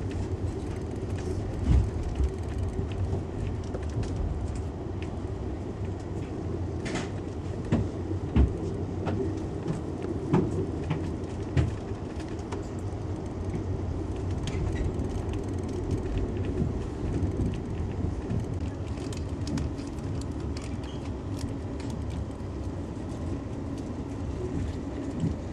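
Passenger train rolling along the track, heard from inside the coach: a steady low rumble with a handful of short sharp knocks from the wheels and car.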